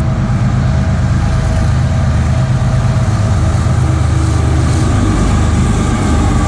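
CSX coal train with two diesel locomotives passing close by: a loud, steady rumble of the engines and the train rolling on the rails.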